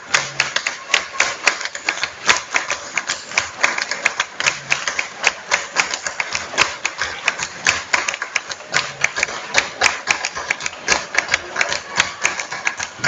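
Live concert music made mostly of dense, clattering percussion hits and claps, with a short low note repeating about every four seconds.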